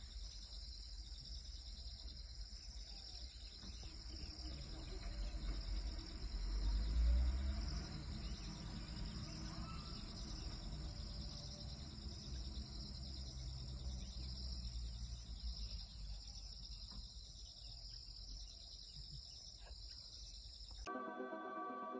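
Steady high-pitched insect chorus with a low engine rumble from safari jeeps, swelling about six to eight seconds in. Music cuts in near the end.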